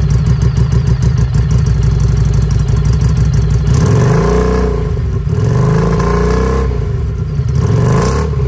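Harley-Davidson Street 500's 494 cc V-twin running loud through a Two Brothers slip-on exhaust, held steady at high revs for the first few seconds, then revved up and down three times. Revved to about 5,000 RPM through this pipe it reads over 100 decibels.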